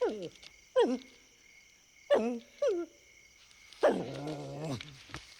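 A dog giving four short yelping barks, each falling in pitch, then a longer drawn-out whine about four seconds in.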